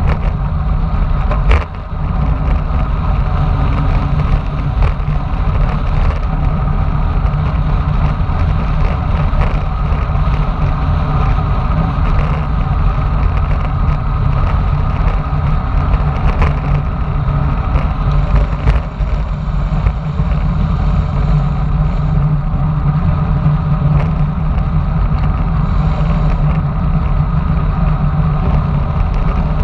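Wind rushing over a bike-mounted action camera's microphone during a fast road-bike descent, with steady road rumble; a single sharp knock about a second and a half in.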